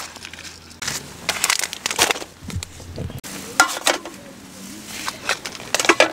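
Small camping items being handled: rustling and light clatter as they are pulled from a fabric gear pouch, then a matchbox and folding knife set down on a wooden plate with soft knocks.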